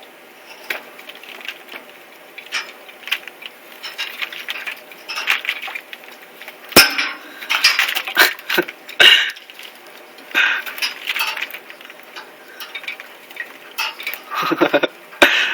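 Budgies bathing in a shallow water dish: irregular bursts of splashing and wing-flapping, with sharp clinks of the dish, busiest in the middle and again near the end.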